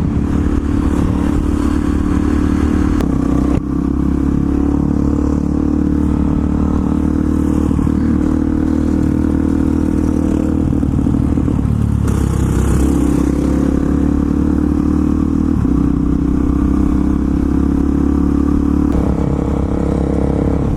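Single-cylinder dirt bike engine running steadily under way. There is a brief dip and recovery in engine pitch about twelve seconds in.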